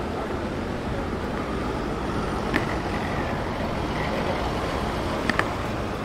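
Articulated city bus driving past, its engine running steadily under street noise, with one sharp click about two and a half seconds in and two more in quick succession near the end.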